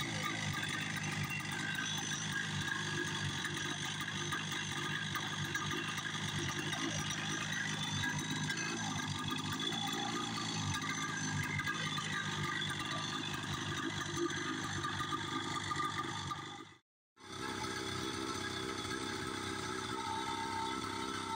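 1972 Moto-ski Capri 340 snowmobile's two-stroke engine running at a steady idle, broken once by a brief gap near the end.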